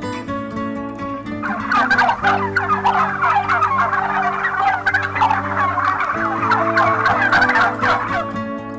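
Domestic turkeys gobbling in a dense, continuous run of overlapping calls that starts about a second and a half in and stops shortly before the end, over background music.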